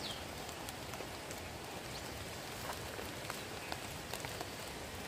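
Steady rain falling: a soft even hiss with scattered drops tapping.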